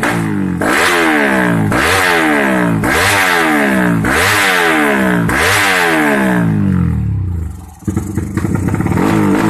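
Drag-race motorcycle engine being blipped: five quick revs about a second apart, each rising in pitch and falling back. Near the end the engine drops away, then settles into steady running.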